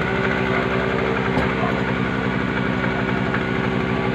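A vehicle engine idling steadily: an even hum over a fast, regular firing pulse that does not change.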